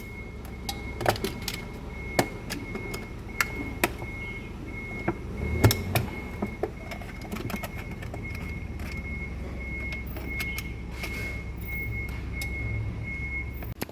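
Scattered sharp clicks and snips of hand tools working on the drain heater plate's wiring, as it is cut to free the wire connector. Under them runs a steady low hum and a faint high tone that pulses on and off evenly.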